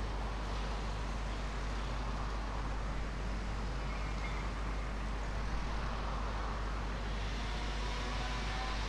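Steady background hiss over a constant low hum, with no distinct events.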